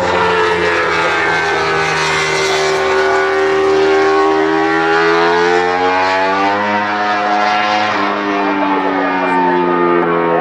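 Honda RC213V MotoGP bike's 1000 cc V4 engine running hard as the bike passes close and rides away through a bend. The note slides down in pitch, climbs again about six seconds in as the throttle opens, then eases off.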